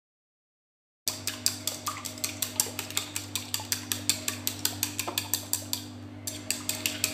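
Chopsticks beating eggs in a bowl: a quick, even clicking of the sticks against the bowl, starting about a second in, over a steady low hum.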